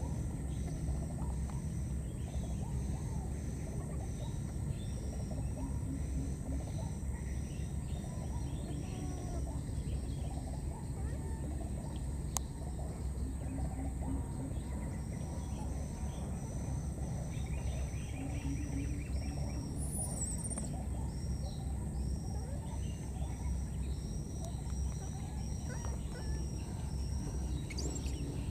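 Outdoor ambience: a steady low rumble under a thin, high chirp repeated about three times every two seconds, which pauses for a few seconds midway and then resumes.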